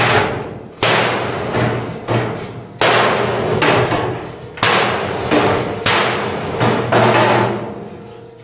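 A hammer striking the steel bulkhead panel of a Ford Cortina Mk3 shell in a series of irregular blows, each ringing out in the metal. The blows grow weaker near the end.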